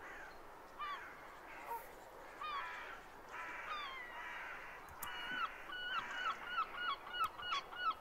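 Herring gull calling: a few separate calls, then from about five seconds in a fast series of short calls, about four a second.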